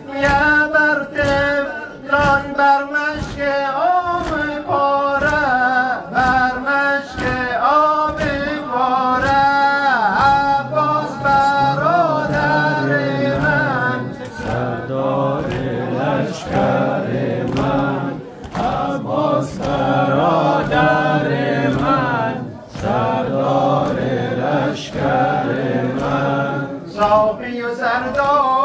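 Men chanting a Shia noha, a mourning lament, in unison with a lead voice. Sharp rhythmic chest-beating strikes run under it at about two a second.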